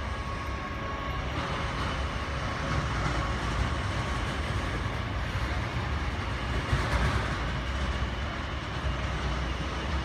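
Steady low rumble of airport apron noise: jet engines and ground service vehicles running, with a slight swell now and then.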